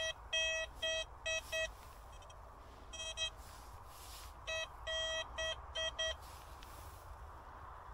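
Metal detector giving short, even-pitched target beeps over a dug hole, in three quick clusters: a run of five, a pair, then another run of about six. The signal shows a metal target still in the ground.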